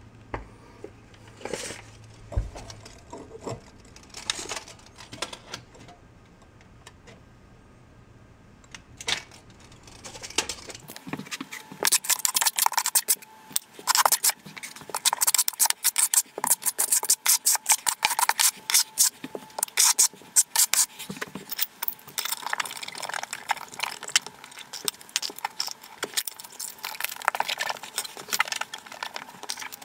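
Hand tiling work on a glass tile backsplash. At first there are a few scattered knocks; from about twelve seconds in comes a rapid, busy run of clicks, taps and scrapes as tools and glass tiles knock and rub against the tiled wall.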